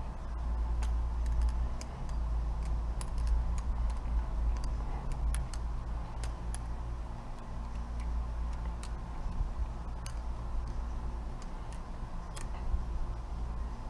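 Balisong (butterfly knife) being flipped by hand: its metal handles and blade clack together in quick, irregular clicks, over a steady low rumble.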